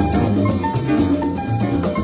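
Live Latin-tinged jazz quintet playing, heard on a lo-fi audience recording: drum kit and hand percussion keep up a busy rhythm under bass notes and a melody line.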